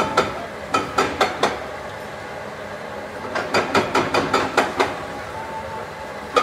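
Demolition excavator working on a rubble heap: two runs of rapid metallic clanks, about six a second, one shortly after the start and a longer one in the middle, over the steady running of its engine.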